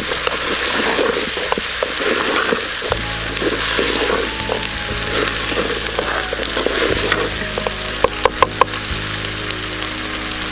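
Chopped mixed vegetables frying with a steady sizzle in a clay pot while a wooden spatula stirs them, with scraping and small clicks. About eight seconds in there is a quick run of four sharp knocks.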